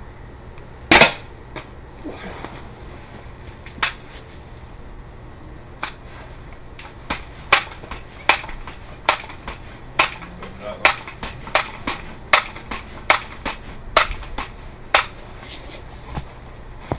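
A break-barrel air rifle fires once, a sharp crack about a second in. Then comes a run of sharp clicks and knocks, about one or two a second, as the rifle is broken open and reloaded.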